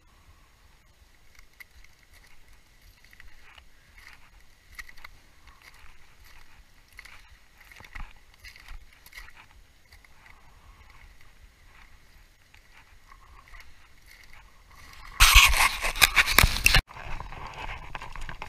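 Footsteps crunching on grit-covered glacier ice, faint and irregular. About fifteen seconds in, a much louder rushing noise lasts about a second and a half and cuts off suddenly.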